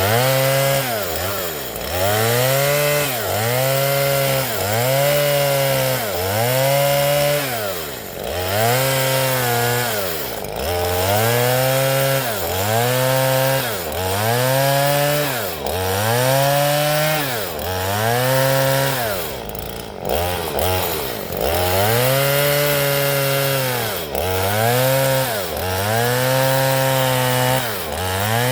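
Two-stroke chainsaw ripping coconut wood into planks. The engine pitch rises and falls in a steady cycle about every second and a half as the saw works through the cut, with a few brief drops in between.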